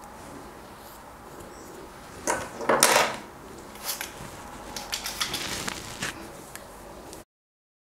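Yellow trigger spray bottle spritzing hair: two loud, short sprays about two to three seconds in, then a run of fainter spritzes.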